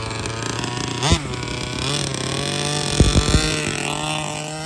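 The 7.5 hp two-stroke gas engine of a 1/5-scale HPI Baja 5B RC buggy revs as the car drives off. There is a quick blip up and down about a second in, and the pitch climbs and falls with the throttle after that. A few sharp thumps come about three seconds in.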